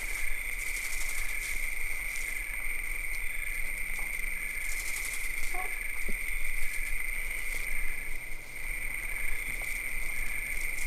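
A steady high-pitched electrical whine with a low hum underneath, from the recording itself; a cat's mittened paws on a glass tabletop make only a few faint soft taps.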